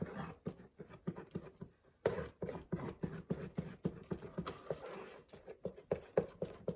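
Irregular light taps and scrapes, a few a second, from a small tool working a fast-setting two-part plastic repair compound by hand: mixing it and starting to spread it.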